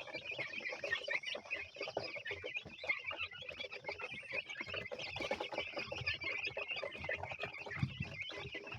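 A flock of young chickens cheeping all at once, a dense, steady chatter of many short high calls.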